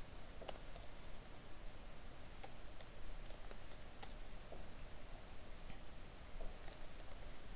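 Scattered keystrokes on a computer keyboard: single clicks and short runs of a few keys, with pauses between.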